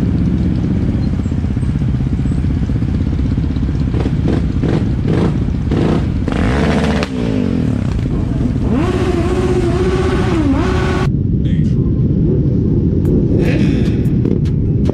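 Several motorcycle and quad bike engines running together at idle, some revved up and down about six seconds in and again around nine to eleven seconds in.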